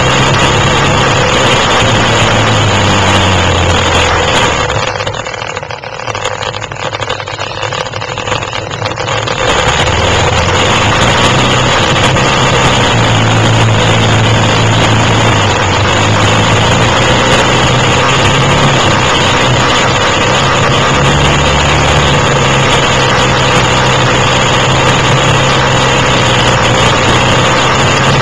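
Quad (ATV) engine running loud and steady. About five seconds in it quiets for a few seconds, then picks up again.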